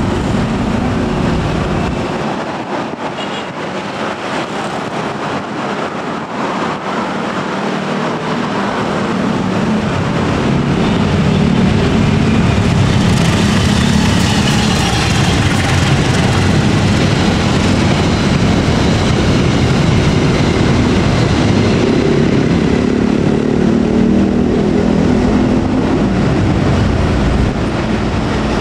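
KAI CC201 diesel-electric locomotive hauling passenger coaches, approaching and passing at speed: a steady low engine drone that grows louder about ten seconds in and stays loud, with wheel and rail noise as it goes by.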